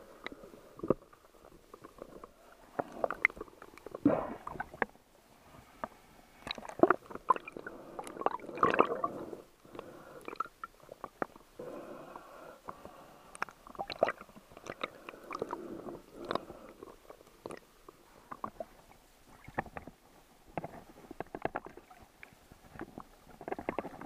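Muffled water sloshing and gurgling around an action camera in a waterproof housing, underwater and then at the surface, coming in irregular swells with many small clicks and knocks against the housing.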